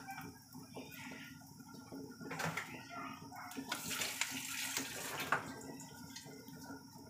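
A pot of mung bean (munggo) soup simmering on the stove, the broth bubbling with small, irregular pops.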